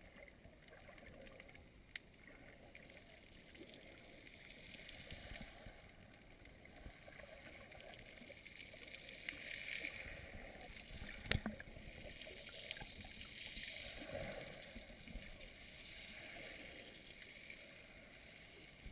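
Muffled underwater ambience picked up by a camera held under the sea surface: a faint, even hiss of moving water. Two sharp clicks stand out, one about two seconds in and one about eleven seconds in.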